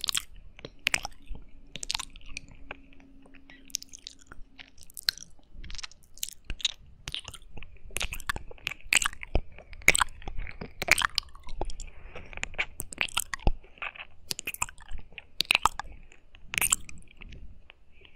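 Close-up wet mouth sounds of ear eating: lips and tongue licking and sucking on a binaural microphone's silicone ear, an irregular run of moist clicks and smacks, several a second.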